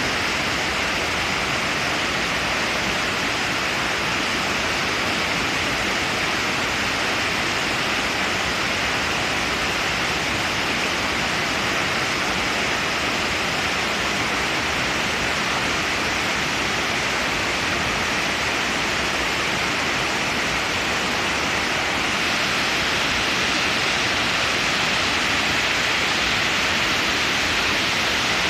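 Waterfall rushing: a steady, unbroken roar of falling water, with its strongest part in the hiss.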